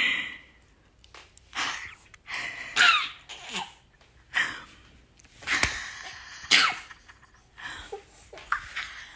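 Five-month-old baby laughing in a string of short, breathy bursts, several of them ending in a squeal that falls in pitch.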